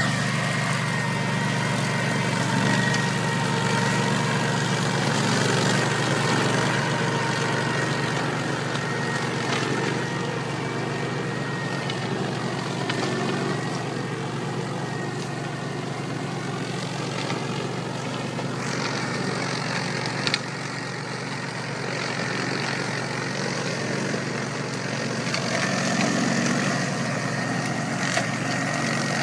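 Orec Rabbit RM980F 4WD ride-on brush mower running steadily under load as its deck cuts through tall, dense weeds, with a steady high whine over the engine.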